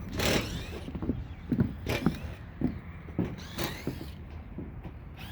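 Metal roofing panels knocking and creaking under handling or footsteps: a string of uneven knocks about two a second, with short rising squeaks between them.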